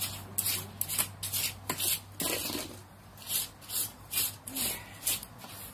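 Repeated short rubbing or scraping strokes, uneven, about two a second, over a faint steady low hum.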